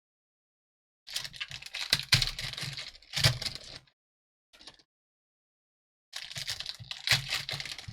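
Foil card packs and cardboard packaging being handled and torn open: two spells of crinkling, tearing and clicking with a pause between.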